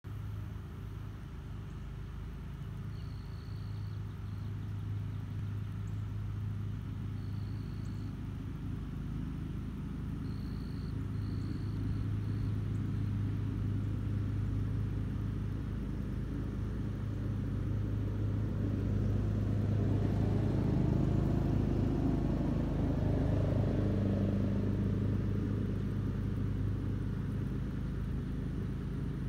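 A steady low motor rumble that swells louder about two-thirds of the way through, with a few short, faint high chirps in the first half.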